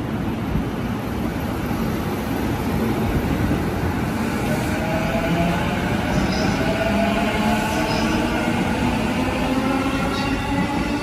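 A JR Chuo Line E233-series electric commuter train running along the platform track, with wheel-on-rail rumble. From about halfway its motor whine sounds as several tones slowly rising in pitch.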